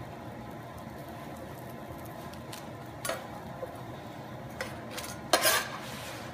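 Metal spatula on an electric griddle as a quesadilla is folded over: a few light taps, then a short, louder scrape about five seconds in, over a faint steady hiss from the hot griddle.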